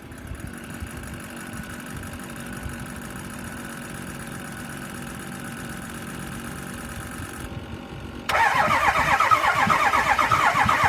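A quieter steady whine for about seven seconds, then about eight seconds in the starter of a 2005 Ford F-350's 6.0-litre diesel cranks the engine loudly without it catching. The truck turns over sluggishly on half-dead batteries boosted by jump boxes, and it will not start.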